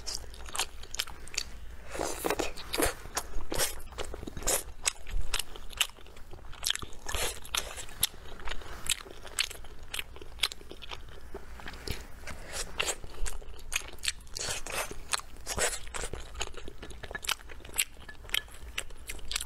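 Close-miked chewing of soft, chewy steamed rice cake, with many short, sharp wet mouth clicks.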